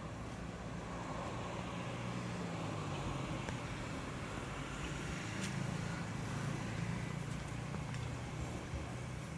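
A motor vehicle engine running steadily, a low hum that swells a little in the middle, with a single small click about five seconds in.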